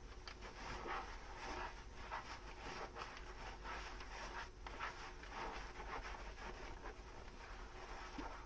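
Dishes being scrubbed with a soapy sponge: a steady run of quick, irregular rubbing strokes.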